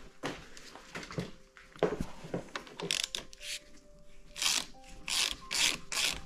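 Hands and tools working on an e-bike fork at the triple clamp: light clicks and knocks, then, from about halfway in, a run of short rasping scrapes about half a second apart.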